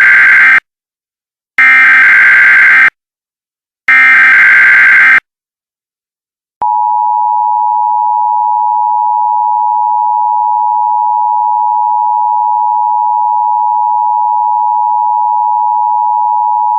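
Emergency Alert System SAME header: buzzing digital data bursts, the last two heard whole and about a second apart. Then, about six and a half seconds in, the EAS attention signal starts: a steady two-tone 853 Hz and 960 Hz alert tone held without a break.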